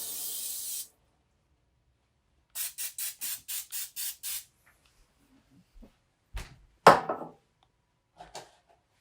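Aerosol cooking spray (Pam original) let out in eight quick short hissing spurts over about two seconds. A loud knock follows about seven seconds in, with a lighter knock near the end.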